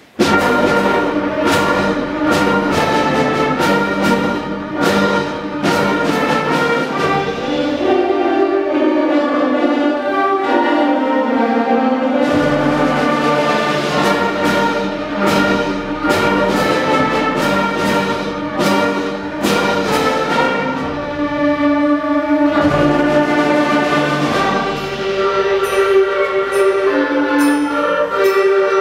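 A school concert band of woodwinds, brass and percussion comes in together on a sudden loud full-band attack at the start of a piece. Repeated percussion hits run through the first several seconds, under sustained brass and woodwind chords; the low instruments drop out briefly in the middle.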